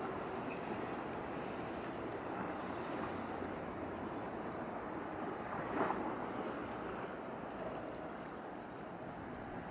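Steady outdoor wind and water noise at a shoreline, with one short louder noise about six seconds in.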